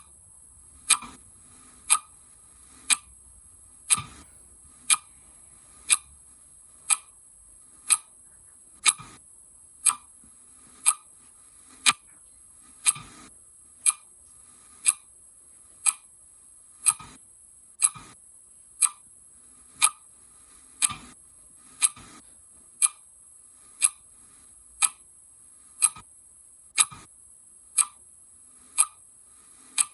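Clock ticking steadily, one sharp tick each second, over a faint constant high hiss.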